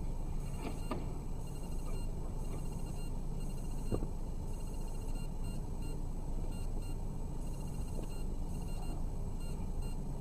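Steady low hum and hiss of a car cabin recorded by a dashcam, with a faint electronic whine over it and a few faint knocks, two near the start and one about four seconds in.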